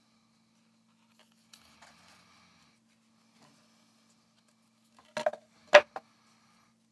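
Soft handling of a small plastic electronics case, then a few sharp knocks about five seconds in, the loudest near the end, as the case is set down on a wooden tabletop.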